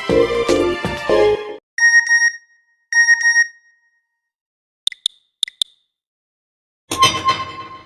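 Nokia N91 ringtones and alert tones played one after another: the end of a melodic electronic tune, then two short steady beeps about a second apart, four quick high clicks in pairs, and near the end a bright chiming tone that starts and rings out.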